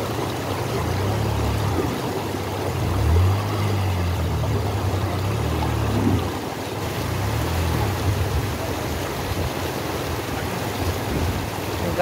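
Motorcycle engine revving unevenly under throttle while the bike is pushed through a fast, shallow, rocky stream, with swells in the revs about three and six seconds in. The steady rush of the river runs underneath.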